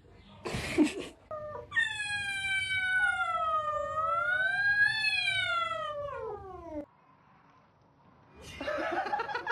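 A cat gives one long, drawn-out yowl of about five seconds. Its pitch wavers and rises, then slides down before it stops abruptly. A short sharp noise comes just before the yowl.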